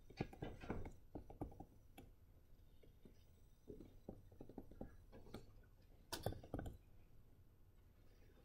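Faint, irregular taps and clicks of a stylus writing on a tablet, with a slightly louder cluster of taps about six seconds in.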